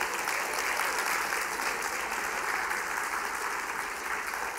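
Congregation applauding, a steady dense clapping that holds at full strength.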